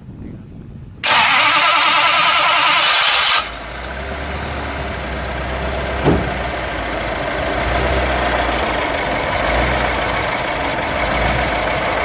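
1957 Ford Thunderbird's E-code 312 cu in Y-block V8 with dual four-barrel carburetors being started: the starter cranks loudly for about two and a half seconds, the engine catches about three and a half seconds in, then settles into a steady fast idle that builds slightly. One sharp click about six seconds in.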